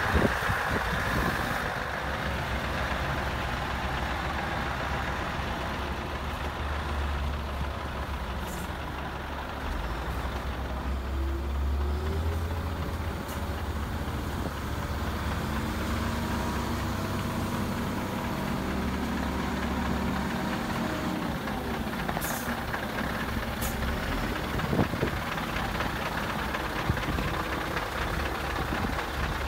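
Scania R144's 14-litre V8 diesel running as the heavy truck is driven slowly, a deep steady engine note that swells around the middle, with a few short clicks.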